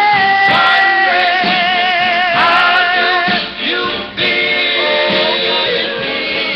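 Doo-wop vocal group singing long held notes with a wavering pitch, played from a vinyl single on a Silvertone portable record player and picked up by a webcam microphone, so it sounds dull and lacks treble.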